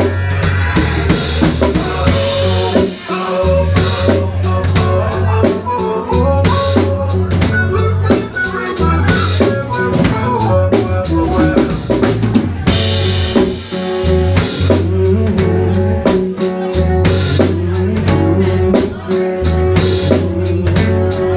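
Live band playing without vocals: a drum kit keeps a steady beat under guitar, with low bass notes held underneath.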